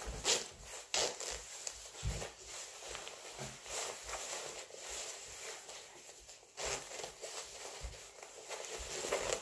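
Rustling of a padded winter parka as it is put on and buttoned up, with a few sharp clicks from the buttons and handling.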